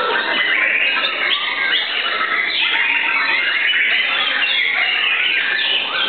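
White-rumped shamas singing over one another: a dense, unbroken stream of quick whistles, chirps and trills.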